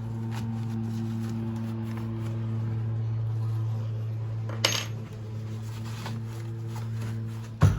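A steady low electrical hum, with a sharp clack about halfway through and two knocks near the end as the window air conditioner's side panels and frame are handled.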